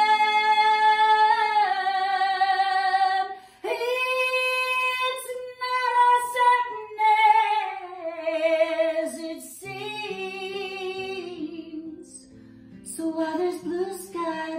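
A woman singing a slow ballad in long, held notes with vibrato, accompanying herself on a strummed Gibson acoustic guitar.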